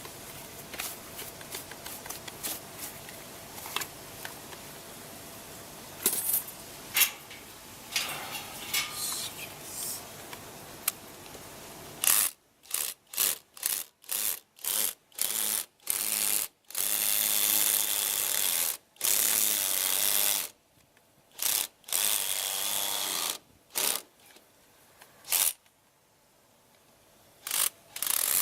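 A small power tool running in short bursts that start and stop abruptly, some lasting a second or two, after several seconds of clicks and handling noises.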